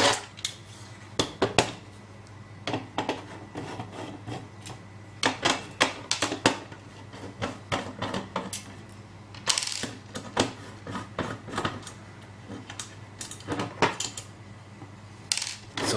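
Irregular light metallic clicks and taps as a Phillips screwdriver works the small screws out of the brass plate of a uPVC sash lock's body, in small clusters with short pauses between.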